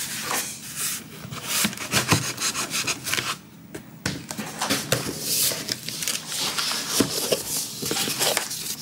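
Cardboard shipping box being handled and opened by hand: irregular scraping, rubbing and rustling of cardboard with short clicks and knocks, briefly quieter about three and a half seconds in.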